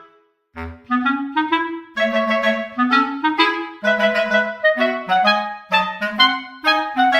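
Background music: a melody of short, quick pitched notes over a lower line, with a brief break about half a second in.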